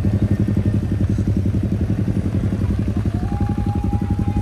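Motorcycle engine running at low, steady revs, its firing coming as rapid, even pulses. A steady high tone joins in about three seconds in.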